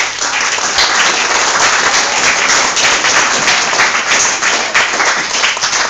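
A room full of guests applauding: a loud burst of many hands clapping that starts suddenly and dies away near the end.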